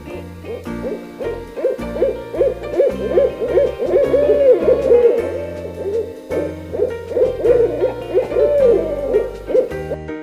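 A bird calling over and over, short calls that each rise and fall in pitch, about one or two a second, over background music with low keyboard notes.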